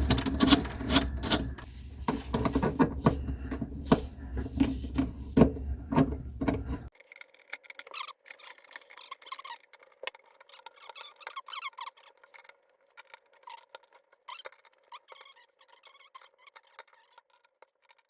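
Mounting screws of an InSinkErator garbage disposal's sink-flange mount being tightened: irregular metal clicks, rubbing and small squeaks as the screws turn. The sound drops suddenly to a much fainter level about seven seconds in, leaving scattered clicks and chirps.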